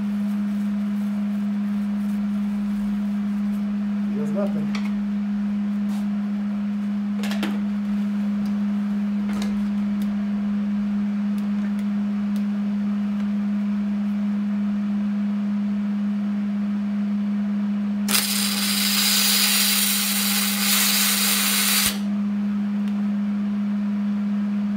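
Steady hum throughout. About 18 seconds in, a Hobart Handler 210 MIG welder's spool gun, fed with 4043 aluminum wire in pure argon, strikes an arc on a cast aluminum cylinder head: about four seconds of loud, even hiss that stops abruptly, as a bead fills the corroded, cracked spots.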